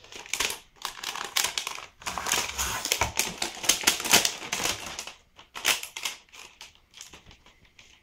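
Clear plastic protective film being peeled off a docking station's plastic body and crinkled in the hand: a run of crackling and rustling, busiest for the first five seconds, then sparser crackles.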